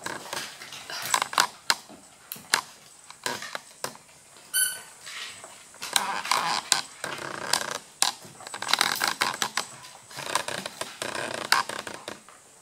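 Dogs' claws clicking and scrabbling on a hardwood floor as they play-wrestle: irregular sharp clicks throughout, with scuffling in between.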